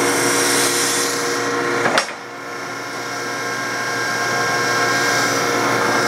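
Hanchett VR Series knife grinder running, its grinding-wheel motor and hydraulic pump making a steady hum, with its table just started. A sharp clunk comes about two seconds in and another at the very end.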